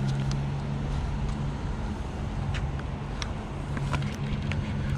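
Steady low engine hum that fades and returns, over an even rushing noise, with a few light ticks scattered through.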